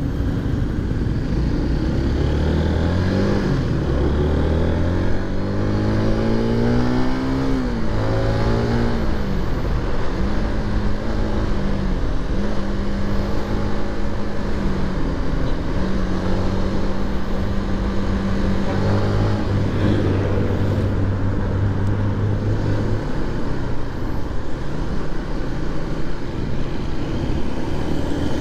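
Motorcycle engine pulling away from a stop and climbing through the gears, its pitch rising and dropping back with each shift, then running steadily at cruising speed over road noise.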